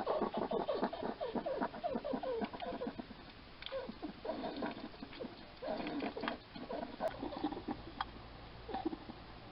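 Hedgehog eating, with fast, wet chomping in a long run at first, then in shorter bursts with pauses between.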